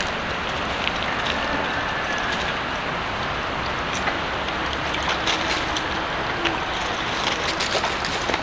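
Steady rushing noise of running water, with scattered light clicks and ticks over it.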